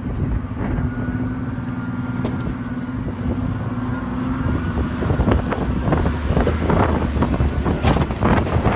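Snowplow vehicle's engine running steadily, with a faint higher whine over it. From about five seconds in, a rapid series of knocks and scrapes joins the engine.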